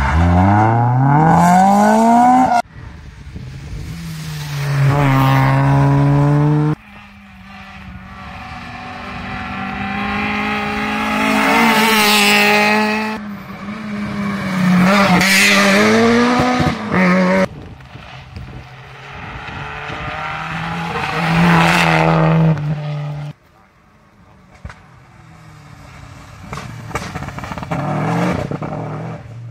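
Rally cars accelerating hard past one after another, each engine revving up through the gears with its note climbing and dropping at every gearchange. The sound cuts abruptly from one car's pass to the next several times.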